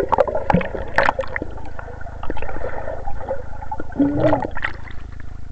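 Air bubbles blown out of a swimmer's mouth underwater, heard through a submerged camera: a gurgling, bubbling stream with many small pops, and a short muffled pitched sound about four seconds in.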